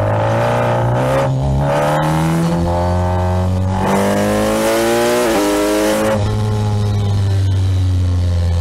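Kawasaki Ninja 1000SX's inline-four engine accelerating, its pitch climbing and dropping back at two upshifts, with wind rush building over the top. About six seconds in the throttle closes and the engine settles to a steady, lower drone.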